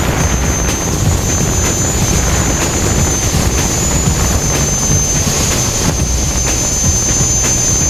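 Quadcopter drone's rotors running steadily in hover, a loud even buzz and rush with a thin high whine over it, as picked up by the drone's own camera.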